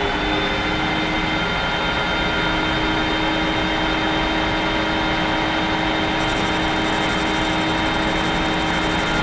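Sharp metal lathe running steadily at about 700 RPM: an even motor and spindle whine with several held tones. About six seconds in, a fine, rapid, high-pitched chatter joins as the tool begins a facing cut across the end of the stock.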